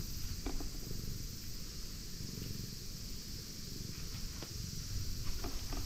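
Domestic cat purring steadily, a low, fast rumble, while it is stroked by hand: the sign of a contented cat enjoying being petted.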